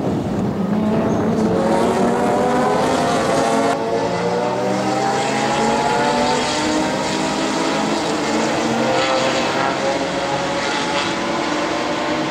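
A pack of race cars running hard together, several engines audible at once, their pitch climbing steadily as they accelerate. The sound changes abruptly about four seconds in.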